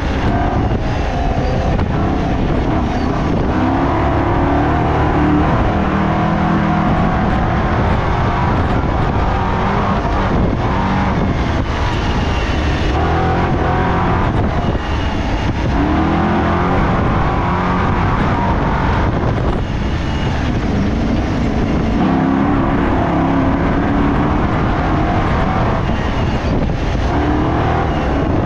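Race car engine running hard, its pitch rising and falling again and again as it accelerates and eases off, over a constant rushing noise.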